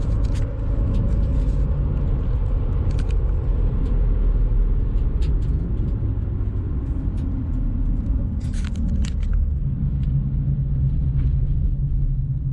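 Steady low rumble of engine and road noise heard inside the cabin of a 2015 Ford Taurus SHO, with its twin-turbo 3.5-litre EcoBoost V6, as it drives along. A few light clicks and rattles come about eight to nine seconds in.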